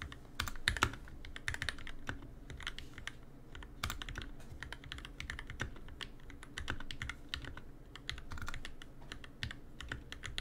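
Continuous typing on an NK65 Entry Edition mechanical keyboard fitted with lubed and filmed Durock L2 linear switches: a fast, even run of keystroke clacks with no pauses.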